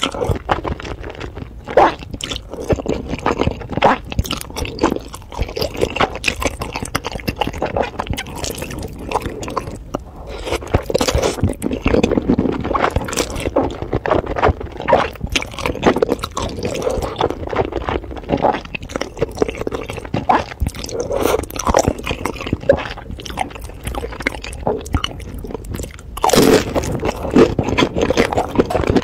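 Close-miked eating sounds: a person slurping and chewing saucy black-sauce noodles, with a steady run of wet smacks and small clicks from the mouth. Near the end there is a louder, longer burst.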